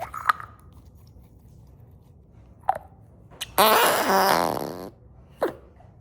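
Fart putty squeezed in its tub, giving one long, loud fart noise with a wavering pitch about three and a half seconds in, with a few short squelches before and after.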